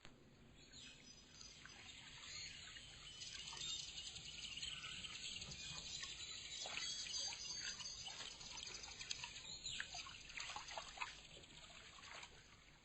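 Faint, busy chirping of small birds over a steady high hiss, many short quick chirps overlapping.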